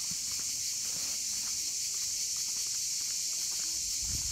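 Steady high-pitched buzzing of a summer cicada chorus in the trees, with faint footsteps on a sandy path.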